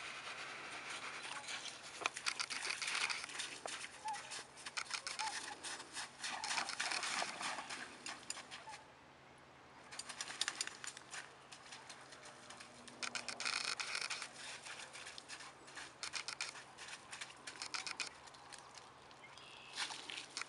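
Footsteps crunching and crackling on snow-crusted pond ice: a dense, irregular run of crisp clicks and crunches, pausing for about a second around the middle.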